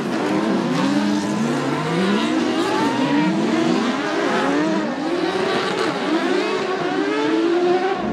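Several autocross buggies racing together, their engines revving hard. The pitch keeps climbing and then dropping back with each gear change, several engines overlapping.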